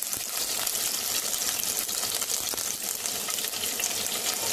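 Fresh curry leaves sizzling in hot oil with mustard and cumin seeds, dried red chillies and bay leaves, a steady frying hiss with fine crackling throughout: the spice tempering (phodni) being fried.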